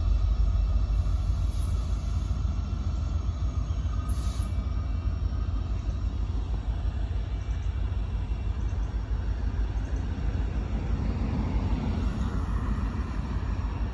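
Steady low rumble of an approaching Union Pacific diesel freight locomotive hauling a gravel train.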